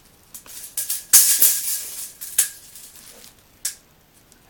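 Rustling and clacking as a corded drill's power cord is handled and uncoiled. The loudest stretch of rustling comes about a second in, followed by a couple of sharp clicks.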